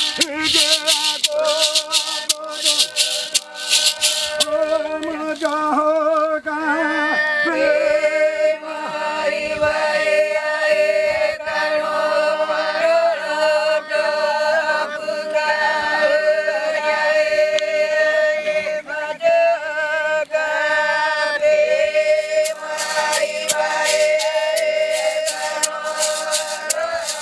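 Krahô chant: high voices singing a melody together, with a maracá gourd rattle shaken in a fast, steady rhythm for the first few seconds and again near the end.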